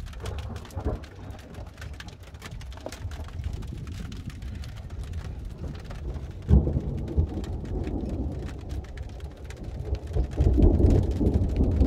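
Heavy rain with big drops pattering close by, and thunder rumbling from a desert thunderstorm. There is a sudden loud low hit about six and a half seconds in, and a louder rumble near the end.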